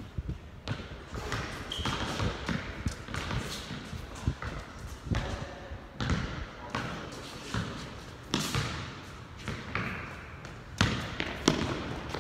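Basketball dribbled and bouncing on a hard court, irregular thuds one after another, with indistinct voices.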